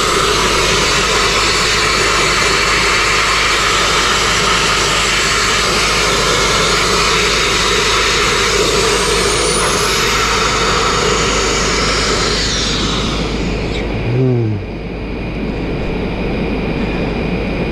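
Sandblasting nozzle firing abrasive at a stone window sill: a loud, steady hiss of air and grit, running through a bigger nozzle that proves too big, too much blast for the job. The blast stops about twelve seconds in, leaving a quieter hiss.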